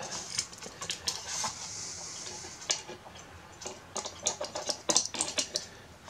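Brass clock movement being handled and set onto metal support posts: irregular light metallic clicks and clinks with brief scraping, the loudest cluster near the end.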